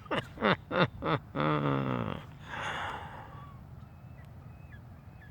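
A person's voice in a few short vocal sounds and one drawn-out one, then a breathy exhale, fading into quiet outdoor background with a few faint high chirps.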